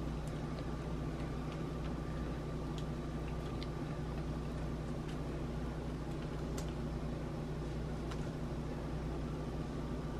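A steady low machine hum with a thin high whine over it, and a few faint light clicks of a metal spoon against a ceramic bowl as dressing is spread.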